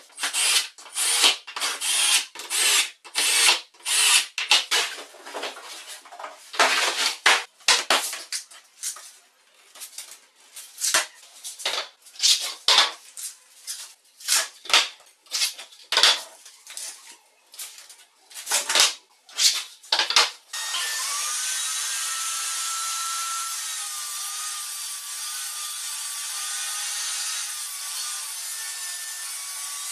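Short, irregular scraping strokes on wood. About twenty seconds in, a table saw comes in loud and runs steadily with a wavering whine as it cuts a plywood sheet.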